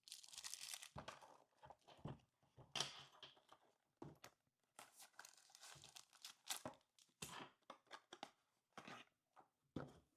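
Packaging of a smart lock's accessory kit being handled: irregular rustling and crinkling, with a few short clicks and knocks.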